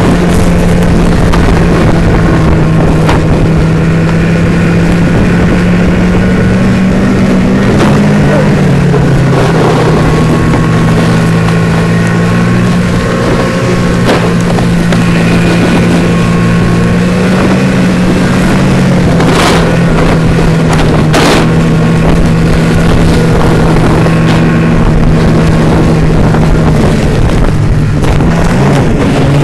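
Snowmobile engine running at speed, a loud steady drone whose pitch dips and rises a few times as the throttle changes. Two sharp knocks come in the second half.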